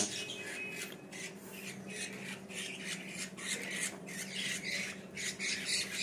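Budgerigar chicks giving many short, raspy squawks in quick succession.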